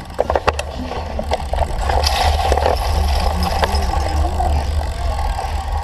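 Wind buffeting the microphone with a steady low rumble while a cyclocross bike is ridden over rough ground, with tyre noise and a few sharp rattles and clicks from the bike in the first second.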